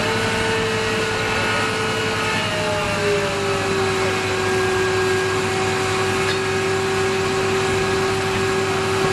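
A machine's motor running at speed with a steady whine, its pitch stepping slightly lower about two and a half seconds in and then holding.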